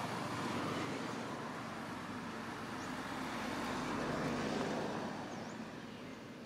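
A road vehicle passing, a steady rush of engine and tyre noise that swells about four seconds in and fades away near the end.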